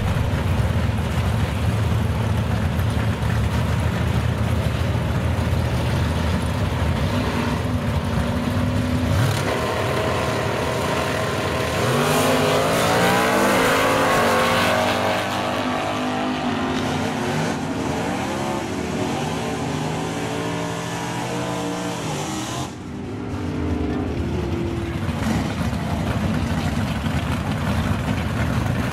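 Super Stock drag cars' engines running at the starting line, then launching about twelve seconds in and accelerating down the strip, the pitch climbing and dropping back with each gear change. Near the end the pitch runs are gone and steady engine running resumes.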